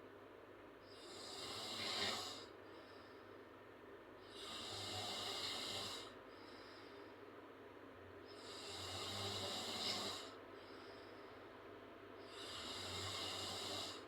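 A girl snoring with her mouth open: four breathy, hissing snores, one about every four seconds, each lasting a second or two, with quieter breaths between.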